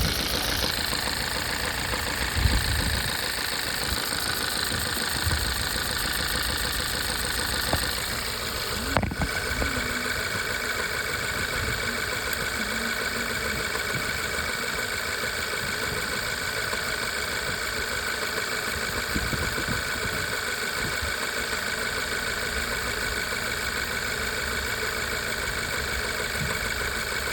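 Car engine idling with a misfire on cylinder 3 that has persisted through swapped ignition coils and new spark plugs. A sharp click comes about a third of the way in, after which a steady high whine joins the engine sound.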